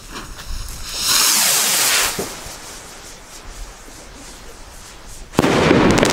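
Pyroland Ignis firework rocket launching: a loud rushing whoosh about a second in, falling in pitch as it climbs away. About five seconds in it bursts in the sky with a sudden loud bang and crackle.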